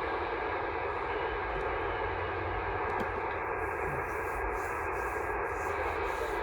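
Steady hiss of HF band noise from an amateur radio transceiver's speaker while tuned to an empty 15-meter single-sideband channel between transmissions, heard through the receiver's narrow voice passband.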